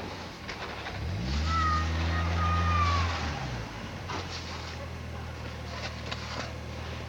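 Car engine revving as a car stuck in snow tries to drive out: the revs rise about a second in, hold for about two seconds with a high whine, then drop back to a steady idle.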